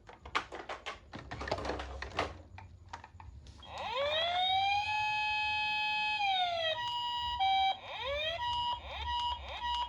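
Toy ambulance minicar's siren. After a few seconds of clicking and rattling, the siren glides up, holds one steady tone for about two seconds, and glides back down. Choppy short tones and quick rising chirps follow.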